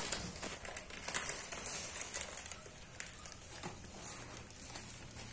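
Scissors cutting through a parcel's plastic and bubble-wrap packaging, with faint crinkling of the wrap and a few scattered sharp clicks.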